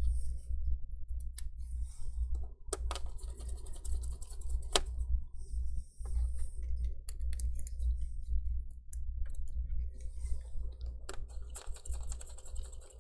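Small screwdriver driving screws into a laptop's screen frame: irregular sharp clicks and ticks with short bursts of scratchy rubbing, over a steady low hum.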